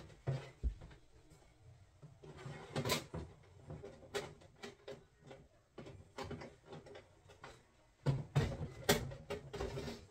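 Handling noise: irregular light knocks, clicks and rustles of small objects being picked up and set down, with a louder flurry about eight seconds in.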